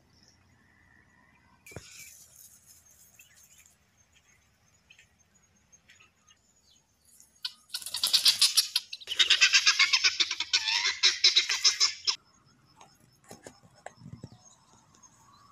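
Helmeted guinea fowl giving loud, harsh rattling calls, rapid pulses run together, in two spells about halfway through, the second longer and cutting off abruptly.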